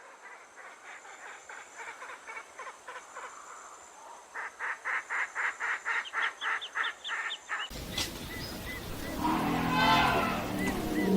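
An animal call repeated in a quick pulsing series, about four calls a second, faint at first and growing louder about halfway through, then cut off abruptly. A different, deeper animal sound with a rising and falling call follows.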